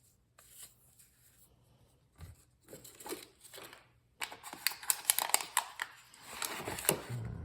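Game packaging crinkling and rustling as board-game components are unwrapped and handled. A few light taps and rustles come first, then about three seconds of dense crinkling with sharp clicks, the loudest part.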